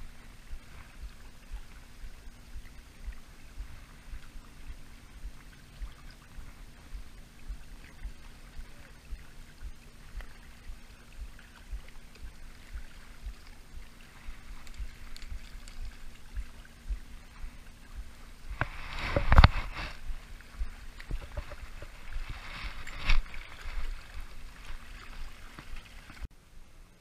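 Wind buffeting the microphone and small waves lapping at the shoreline, under a faint steady hum. Two sharp knocks, the louder one about two-thirds of the way through and a second a few seconds later.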